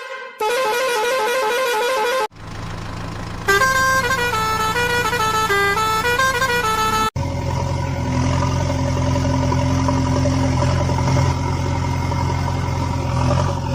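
Electronic toy-vehicle sound effects. A warbling, siren-like tone plays for about two seconds. Then a short melody of stepped notes plays over a low engine-like hum. From about seven seconds in comes a steady engine drone with a sustained horn-like tone.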